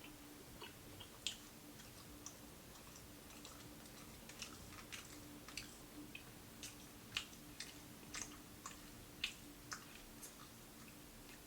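Close-miked chewing of crispy fried food: quiet, irregular sharp crunches and mouth clicks, several a second at times. A faint steady hum runs underneath.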